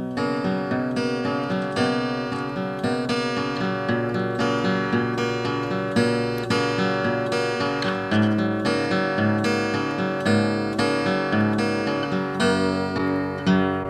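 Solo steel-string acoustic guitar instrumental, fingerpicked: a steady run of plucked, ringing melody notes over a bass line that shifts lower about eight seconds in.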